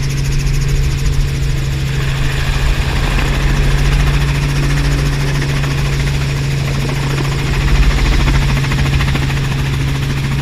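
Robinson R44 helicopter's piston engine and rotor running, heard from inside the cabin as a loud, steady drone.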